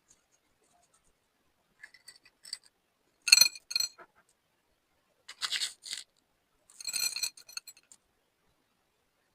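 Slime being mixed with add-ins: three bursts of crisp clicking and clinking, the first and loudest about three seconds in, with a few faint clicks just before.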